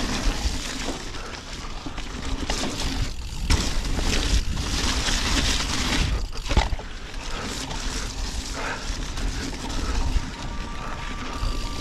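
Radon Swoop enduro mountain bike riding down a wet, snowy, muddy forest trail: tyres pumped too hard roll over mud, snow and roots, with wind rumbling on the microphone and a few sharp knocks from the bike over bumps.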